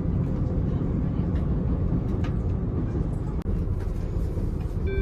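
Steady low rumble of a KiHa 85 series diesel railcar running, heard inside the passenger cabin, with a few faint clicks. Right at the end the first rising notes of the onboard Wide View chime begin.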